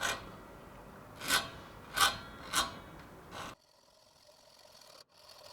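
A small metal spacer being cut by hand, with about four strong saw strokes over a continuous grinding sound. The sound stops abruptly about three and a half seconds in.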